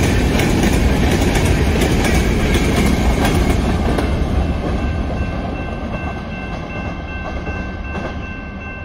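Freight train of covered hopper cars rolling past, wheels clattering over the rail joints, the rumble fading after about four seconds. From about halfway a grade-crossing warning bell rings with a steady, repeating tone.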